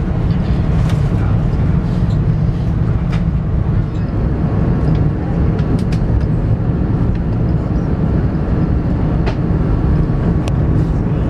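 Steady low rumble of the airliner's cabin noise on an Airbus A380 in flight, with a few faint clicks on top.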